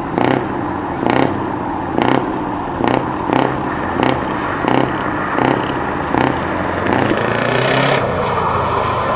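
Heavy truck diesel engine with an open, straight-through exhaust, revved in short sharp blips about once a second over a steady idle, then held in a longer, smoother rev near the end.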